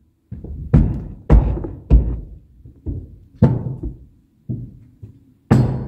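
Heavy thuds of a sledgehammer striking a tongue-and-groove plywood subfloor sheet to knock it tight. There are about eight blows at uneven intervals, each dying away over about half a second.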